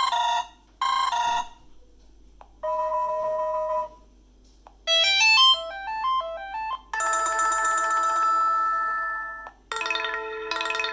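BlackBerry Key2 stock notification tones played one after another: two quick bright chimes, then a short two-note tone, a rising run of notes, a held bright chord, and another chord starting near the end.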